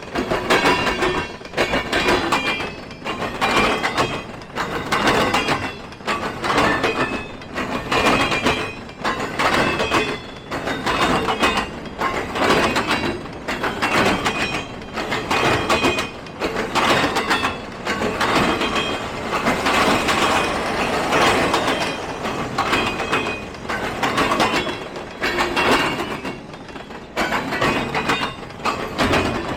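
Railroad cars rolling past, their wheels clacking over rail joints in a steady repeating rhythm, with a faint high wheel squeal.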